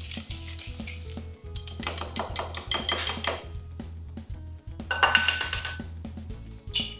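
A utensil stirring thick batter in a glass mixing bowl, scraping and clinking against the glass in rapid strokes, in two bursts: a longer one a second and a half in and a shorter one about five seconds in. Soft background music plays underneath.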